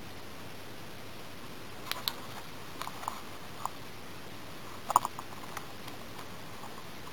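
A cardstock pop-up book handled and its page turned: a few short, light clicks and taps of card against card as the page flips over and the pop-up opens, with the loudest cluster about five seconds in, over a steady faint hiss.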